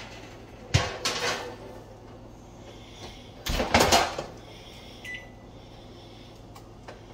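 A metal sheet pan clanks as it is pulled off the oven rack. A few seconds in, the oven door is shut with a loud thud. The pan is then set down on the stovetop with a short clink that rings briefly.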